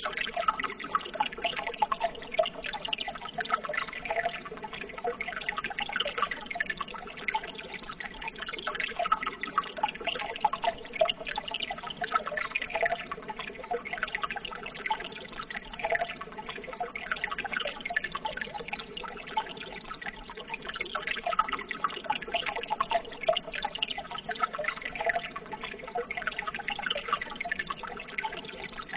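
Running water trickling and splashing steadily, with many small drips and gurgles.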